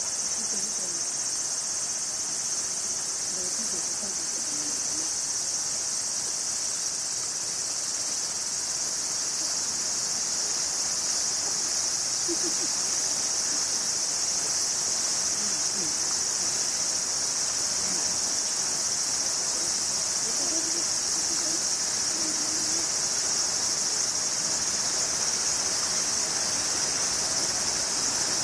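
A dense chorus of summer insects: a steady, high-pitched drone that does not let up.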